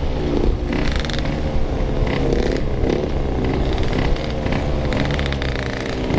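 Yamaha RX-King two-stroke motorcycle engine running under way, its pitch wavering up and down as the throttle changes, with some rattle.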